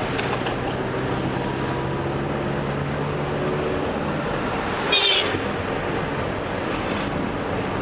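Steady engine and road noise inside a moving Tata car's cabin, with a low engine hum for the first few seconds. About five seconds in, a short, loud horn honk cuts through.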